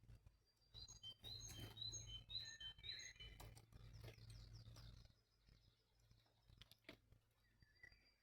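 Faint small bird chirping in a quick run of short high notes about one to three seconds in, followed by a few faint clicks, over a low steady hum.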